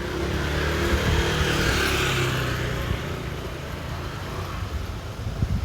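Busy street traffic: a motor vehicle passes close, its engine note and tyre hiss swelling about a second or two in and then fading into the steady traffic noise.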